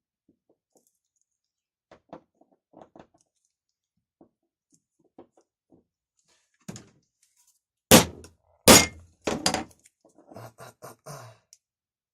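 Hammer blows on a pin punch, driving the retaining pin out of a Ural chainsaw starter's ratchet. A light tap is followed by two loud metal strikes under a second apart, two lighter ones, then a run of softer taps near the end. The pin is stuck tight and barely moving.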